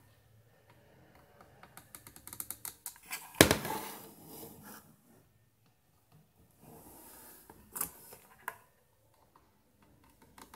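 Multimeter probe tips tapping and scraping across motherboard solder joints and components, a run of light irregular clicks, with one louder knock about three and a half seconds in as the board is handled.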